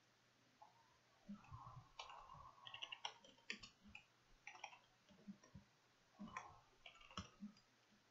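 Faint, irregular clicks of typing on a computer keyboard, starting about a second in.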